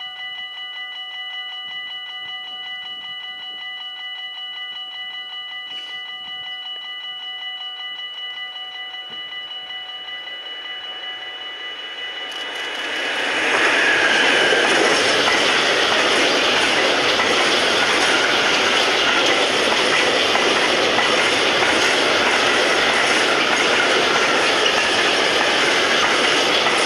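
A Class 186 electric locomotive hauling a freight train of tank wagons approaching and passing close by. First a steady high ringing is heard. About half-way in, the noise swells as the locomotive goes past, then holds as the tank wagons roll by with a rhythmic clickety-clack of wheels over the rail joints.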